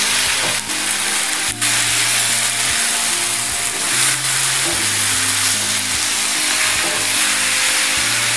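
Onions, bitter gourd and chopped tomatoes sizzling in hot oil in a kadhai as they are stirred with a wooden spatula, with two knocks in the first two seconds. Background music with held notes plays over it.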